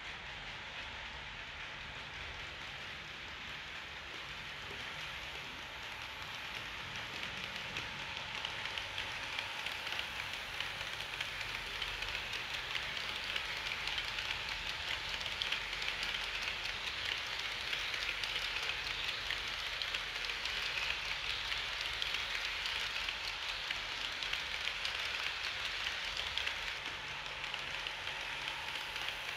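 HO-scale model train, an SBB Re 4/4 IV locomotive model hauling passenger coaches, running on the layout's track: a dense, fine rattle of small metal wheels on the rails that grows louder about a fifth of the way in as the train comes close.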